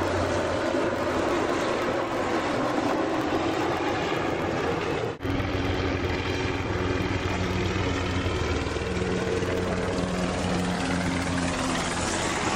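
Helicopter running loud and steady, rotor and turbine noise with several held engine tones; the sound breaks off for an instant about five seconds in and resumes the same.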